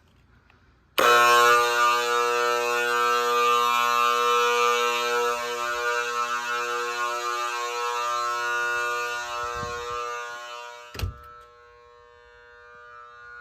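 Faraday electromechanical fire-alarm horn switched on about a second in: a loud, steady buzzing blare that slowly weakens. About eleven seconds in there is a sharp knock, and after it the horn carries on much quieter.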